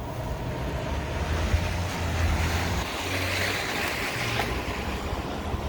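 City traffic: a steady low engine rumble, with the tyre hiss of a vehicle passing on a snowy, slushy street swelling about two seconds in and fading a couple of seconds later.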